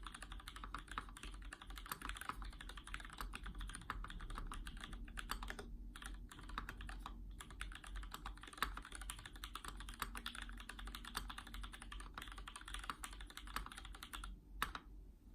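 Fast continuous typing on a mechanical keyboard (E-Yellow Canoe FE) with lubed 55 g custom Gateron switches, lubed GMK stabilizers and thick PBT keycaps, with a few short pauses between bursts.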